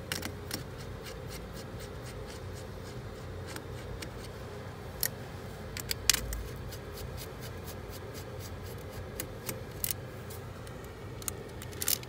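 Scattered sharp clicks and light scraping of a screwdriver working at a fuse in a car's battery-terminal fuse box to remove it, over a steady low hum.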